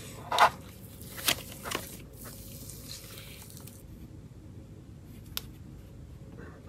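Thick wood glue slime squishing as a stretched length of it folds back into its plastic jar, with a few sharp wet squelches in the first two seconds and a sizzly hiss after them. A single short click comes about five seconds in.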